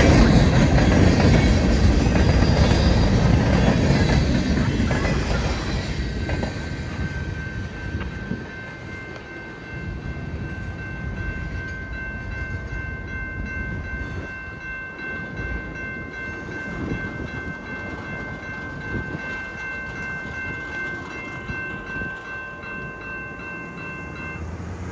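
A freight train's cars rolling past close by, loud at first and fading away after several seconds. Then a level crossing's warning bell rings steadily for about twelve seconds and stops as the gates lift.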